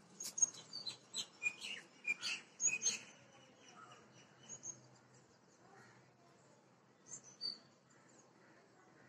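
Small birds chirping, a quick run of short, high chirps in the first few seconds, then only an occasional one.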